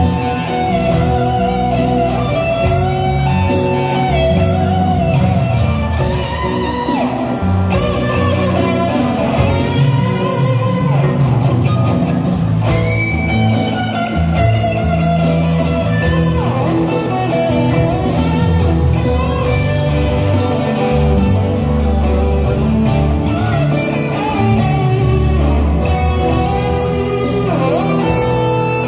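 Live rock band playing: electric guitars over bass guitar, drum kit and keyboard.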